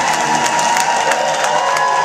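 A crowd clapping and cheering, with a long, high held cheer over the applause.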